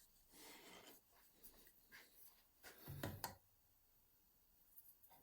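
Near silence, with a few faint brief scrapes and rubs of something being handled on a workbench, the clearest about three seconds in.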